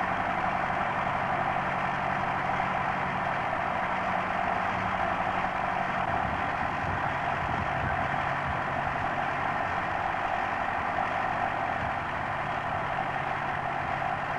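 Engine-driven pump of a sheep spray race running steadily, with the hiss of its spray jets. The low hum shifts to a rougher rumble about six seconds in.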